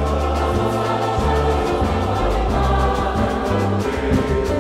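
A mixed choir singing a toada of the Parintins boi tradition, many voices in sustained harmony with accompaniment and a bass line moving in steps underneath.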